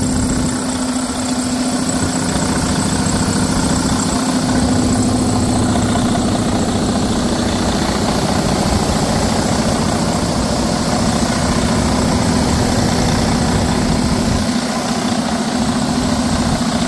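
Detroit Diesel DD15 inline-six truck diesel engine idling steadily, with an even, rapid diesel clatter over a constant low hum.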